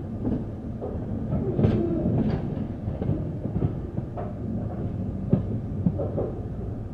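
Passenger train running along the track: a steady low rumble with irregular clanks and clicks of the wheels over rail joints.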